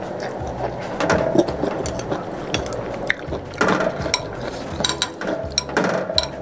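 Close-up eating sounds: sipping rice noodle soup from a spoon and chewing, with many quick small wet clicks and a few louder slurps. A metal spoon now and then knocks against the ceramic bowl.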